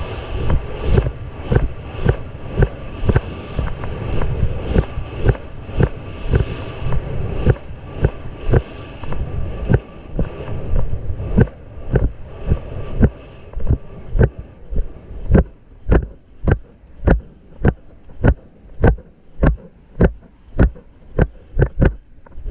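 Racehorse galloping on a soft dirt track: hoofbeat thuds of each stride about twice a second, under a rush of wind on the microphone. The wind fades about halfway through, leaving the stride beats clear.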